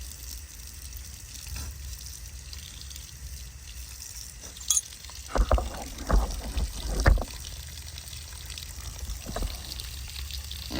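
Water hissing and trickling from a pig's nipple waterer as the pig bites at it, with a click and then a quick run of loud knocks a little past halfway.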